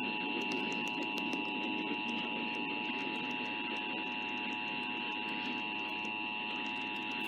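Emergency Alert System attention signal: the steady two-tone alert (853 and 960 Hz) sounding through radio reception hiss, with a thin high whistle alongside. It cuts off near the end, just before the spoken test message.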